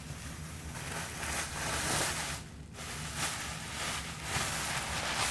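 Thin plastic garbage bag rustling and crinkling as hands unwrap a mailed package, with a brief pause about two and a half seconds in.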